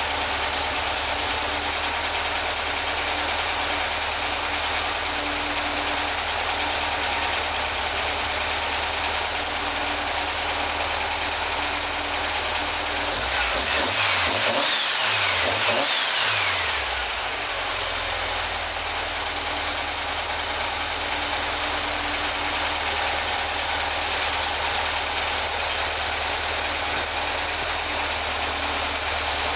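Powerhaus-built 2110cc air-cooled VW flat-four with twin carburetors, running steadily at idle on an engine stand. About halfway through the throttle is blipped briefly and the engine speed rises and falls, while the carburetors and linkage are being adjusted.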